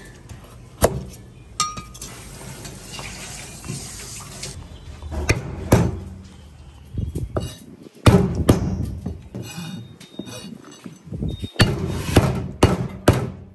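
Cleaver chopping on a plastic cutting board: a series of irregular sharp knocks, some with a brief metallic ring. The blade first cuts through a cake of brown sugar, then smashes and chops root pieces.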